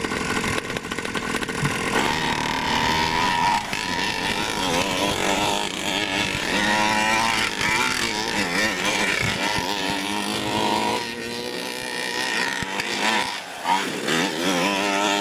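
Small two-stroke gas engine of a 1/5-scale RC monster truck, revving up and down repeatedly as the truck accelerates hard on dirt.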